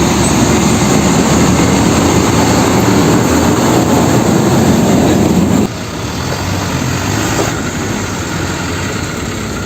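Sound effect of a heavy truck engine running steadily. It drops to a lower level a little over halfway through.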